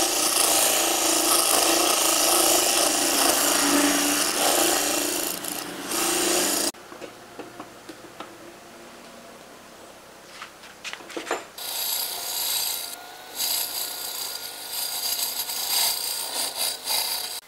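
Hand-held turning tool cutting a spinning wooden cylinder on a wood lathe: a steady scraping hiss that cuts off suddenly about seven seconds in. A few light knocks from a rubber mallet follow, then the cutting starts again about twelve seconds in.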